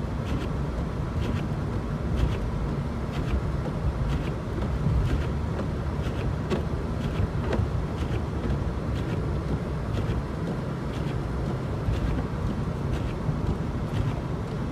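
A car driving on a snowy road, heard from inside the cabin: a steady low rumble of road and engine, with faint ticks about once a second.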